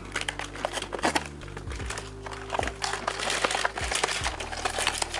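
Background music with steady low notes, and blind-box packaging crinkling and rustling as it is handled and opened.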